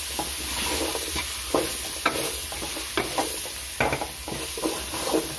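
A ladle stirring and scraping vegetables frying in a metal pot, with repeated scrapes against the pot over a steady sizzle.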